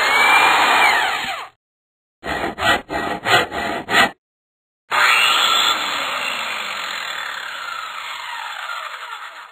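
Sound effects: a loud whoosh with a gliding tone, a quick run of six harsh noisy hits, then a long whoosh with falling tones that slowly fades out.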